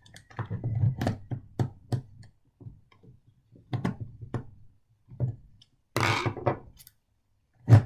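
Irregular small clicks, taps and knocks of model train parts being handled and turned during disassembly, with a short scraping sound about six seconds in.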